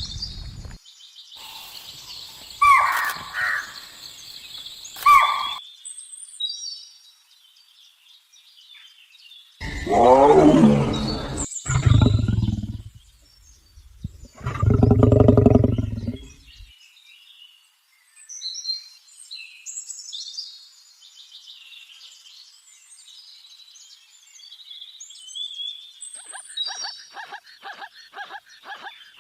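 Animal sound effects: birds chirping on and off, with two loud roars of a large animal about ten and fourteen seconds in, and a fast rattling call near the end.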